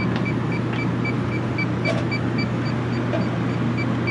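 Handheld electronic refrigerant leak detector beeping in a steady rhythm, about three to four short high beeps a second, while its probe is swept along the base of a refrigerated prep table in a search for a refrigerant leak. Behind it runs a loud, steady machine hum.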